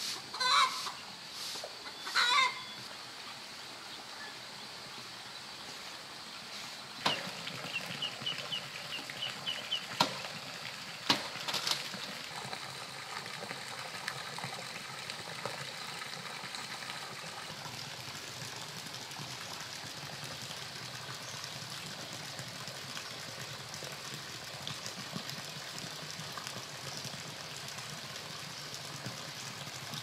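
Chickens clucking, loudest in the first few seconds with two wavering calls, then a quick run of high chirps. A few sharp knocks come around ten seconds in, over a steady background hiss.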